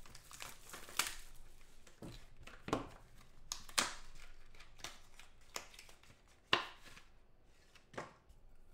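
Hard plastic graded-card slabs and their box being handled: about half a dozen sharp plastic clicks and taps, irregularly spaced.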